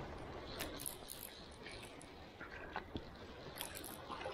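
Stream water running, with a few short splashes and knocks.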